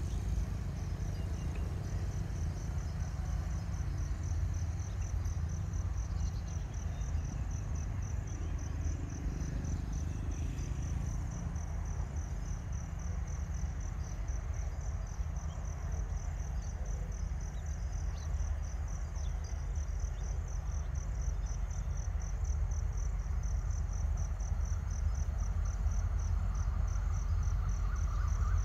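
An insect chirping steadily and high-pitched, about two chirps a second, over a steady low rumble. A faint steady tone comes up near the end.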